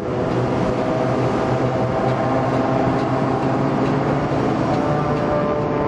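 Aircraft engines droning loudly and steadily, several pitched tones rising slightly about a second and a half in.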